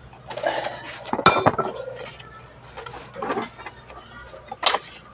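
Metal parts and tools clinking and clattering as they are handled, in a string of knocks and rattles, the loudest about a second in and again near the end.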